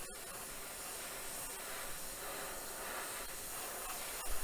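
Airbrush spraying thinned acrylic orange paint: a steady hiss of air and paint from the nozzle. A soft knock near the end.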